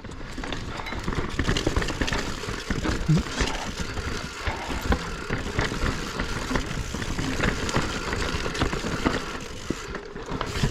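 Specialized Stumpjumper Evo Alloy mountain bike ridden fast down dirt singletrack: a steady rush of knobby tyres on the trail, with frequent knocks and rattles from the bike going over roots and rocks.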